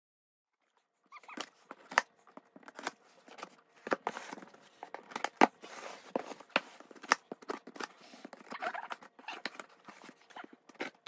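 Scissors cutting the packing tape on a cardboard box: an irregular run of sharp snips, clicks and scrapes, with cardboard rustling and handling noise, starting about a second in.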